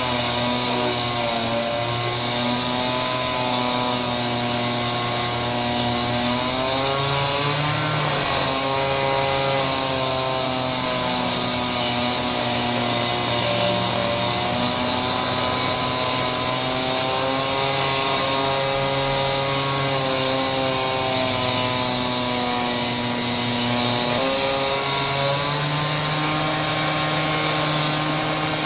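Concrete saw cutting a stone floor, its motor running steadily over a constant high hiss. The pitch wavers and shifts as the cut goes on, most clearly about eight seconds in and again near the end.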